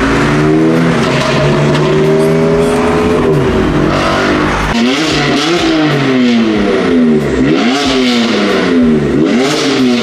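Sports car engine revving hard: it pulls up and drops back for the first few seconds, then from about five seconds in it is blipped up and down over and over, about once a second.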